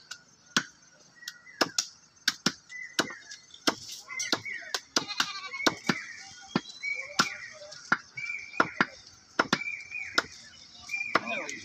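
Cleavers chopping goat meat and bone on wooden log chopping blocks: sharp, uneven chops about two a second from two choppers working at once.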